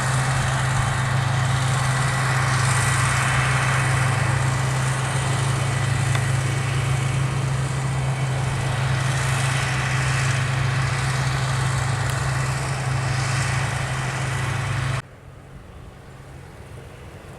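Heavy diesel farm machinery engine running steadily with a strong low hum. It cuts off abruptly about fifteen seconds in, leaving a much quieter hiss.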